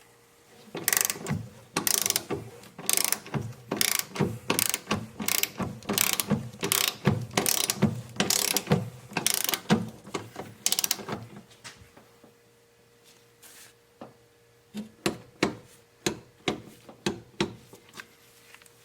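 Hand ratchet wrench tightening suspension bolts, clicking in even strokes about one and a half a second. It pauses for a few seconds, then a few more quicker clicks follow near the end.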